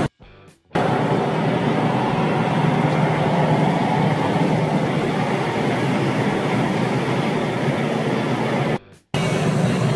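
Steady road and wind noise from riding in a moving vehicle. It cuts out abruptly twice, just after the start and near the end.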